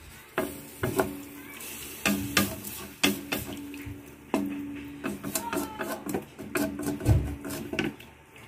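Wooden spatula stirring beef in simmering water in a metal wok, with irregular knocks and scrapes against the pan.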